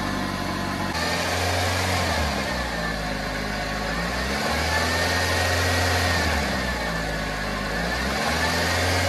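Maruti Swift MPFI petrol engine running on a freshly replaced connecting-rod bearing, blipped on light throttle so it revs up and back down about three times.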